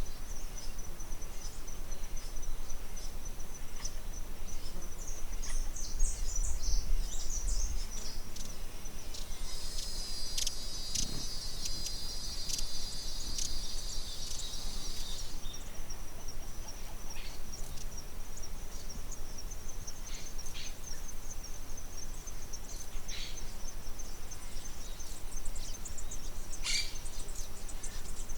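Outdoor nature ambience: a steady high-pitched insect trill, like crickets, with scattered short bird chirps. About a third of the way in, a denser, louder high chorus joins for about six seconds.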